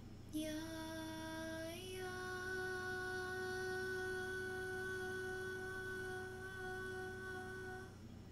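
A woman's voice sings a long, steady wordless note in light-language toning. It starts with a short lower note, steps up slightly about two seconds in, holds that pitch for about six seconds, and stops just before the end.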